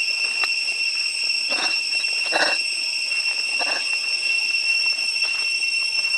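Steady, high-pitched insect drone holding an even pitch, with three brief, lower animal calls about one and a half, two and a half and nearly four seconds in.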